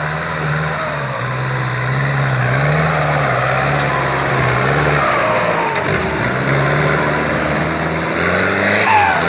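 Turbocharged engine of a caged trail Jeep running under load, its speed rising and falling several times, with a faint high turbo whistle gliding up and down above it.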